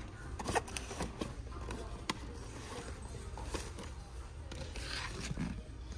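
Shop-floor ambience: a steady low hum under scattered light clicks and taps from cardboard and plastic packaging of boxed beauty products being handled on a shelf.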